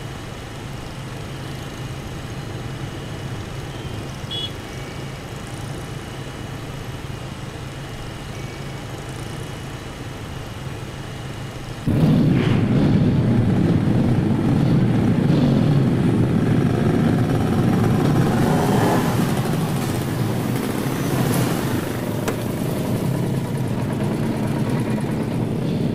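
A motorbike engine running steadily while riding. About twelve seconds in, a sudden, much louder sound of several motorbikes coming past together, their engines revving up and down.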